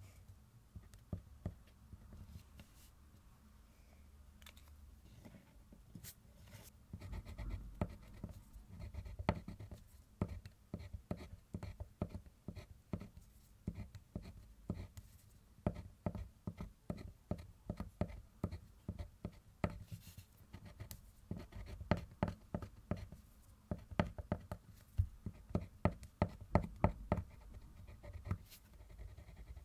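Thick Diamond colored pencil scratching on kraft paper in short, quick strokes as it draws small petals. The strokes are sparse at first and come fast and close together from about six seconds in.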